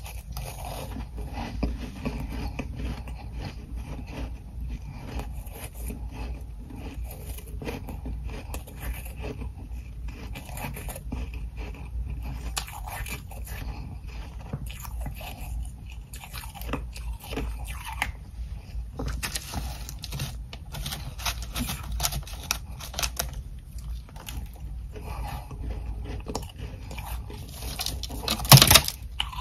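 Close-up biting and chewing of ice chunks coated in humidifier frost: repeated crisp crunches, coming thickest about two-thirds of the way in, with one loud sharp crunch near the end.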